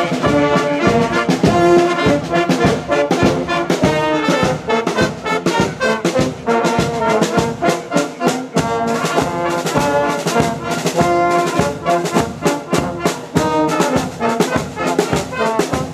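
Marching brass band playing a tune, with trombones and trumpets to the fore.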